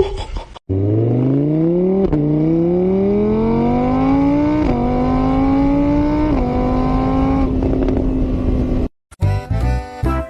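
Car engine accelerating through the gears: the pitch climbs, drops back at each shift about two, four and a half and six and a half seconds in, then holds steady before cutting off suddenly. Short bursts of music follow near the end.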